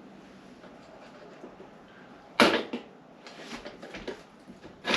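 Small sharp clicks and taps of needle-nose pliers working a motorcycle seat's hinge pin and hairpin clips: a loud click about two and a half seconds in, a few lighter ones after it, and another near the end.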